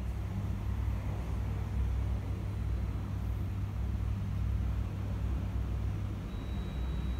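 Steady low rumble with no clear events, and a faint thin high tone coming in near the end.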